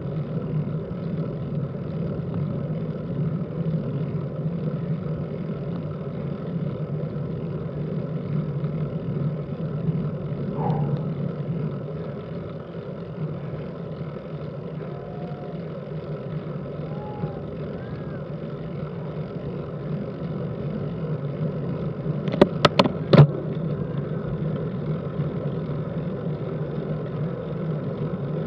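Steady low rumble of a road bike climbing slowly: tyre and wind noise on the road. A quick cluster of sharp clicks comes a little after 22 seconds in.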